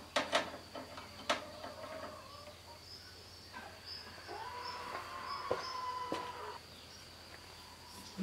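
Hand-unscrewing the fuel filter bowl on a Fiat 450 tractor: a few sharp metal clicks in the first second or so, then a thin steady squeak held for about three seconds near the middle.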